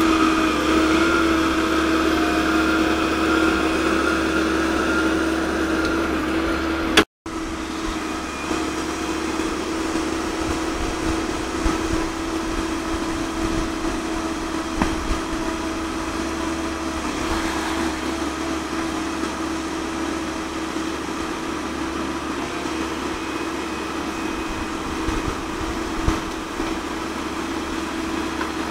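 Komatsu PC130-8 excavator's diesel engine running steadily with an even drone. The sound cuts out for a moment about seven seconds in, then the engine carries on unchanged.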